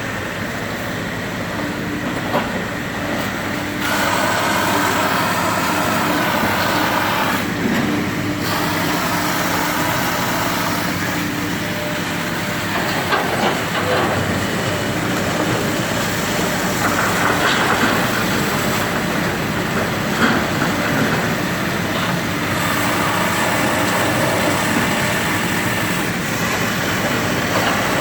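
Heavy diesel demolition machinery running steadily under load, with intermittent clanks and clatter of metal and debris from the building being torn down.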